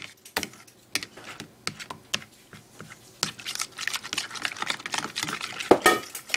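Fork stirring cornbread batter in a mixing bowl: irregular clicks and taps of the fork against the bowl, with a louder clink near the end.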